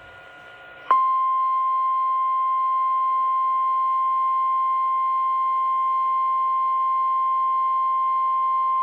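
Emergency weather warning alert tone: after a second of faint hiss, a single steady high tone starts suddenly and holds unbroken, signalling that a warning message, here a flash flood warning, is about to be read.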